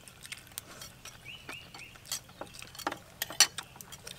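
Eating sounds: chopsticks and skewers clicking against plates, mixed with chewing. They come as an irregular scatter of short, sharp clicks, the loudest a little over three seconds in.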